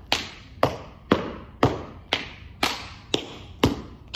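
Sharp taps at a very even two a second, each alike and ringing briefly in the room.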